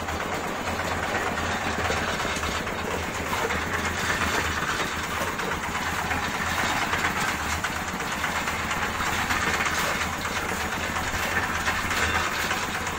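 Portable concrete mixer's engine running steadily.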